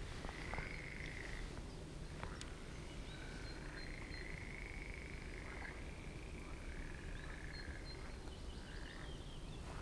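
Frogs calling in long trills, several in a row, some overlapping one another.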